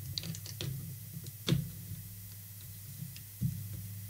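Clicks and knocks of a coax cable's BNC connector being pushed and twisted onto the antenna tuner's metal jack, with the sharpest click about a second and a half in and a duller knock near the end. A steady low hum sits underneath.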